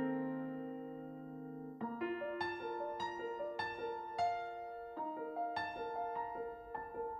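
Slow, gentle piano music: a held chord fades away, then a melody of single notes and chords begins about two seconds in.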